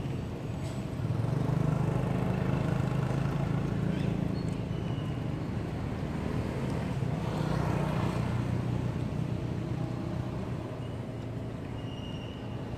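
A motor vehicle engine running with a steady low hum that grows louder about a second in, with a broader rush that swells and fades past the middle.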